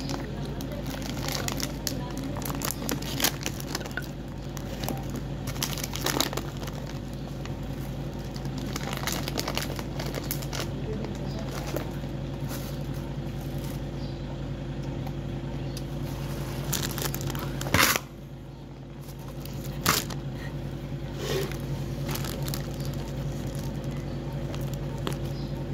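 Plastic bag crinkling as a bag of raw stink beans (sato) is opened and emptied, then crunchy chewing of the beans, with many short crackles and clicks. A steady low hum runs underneath.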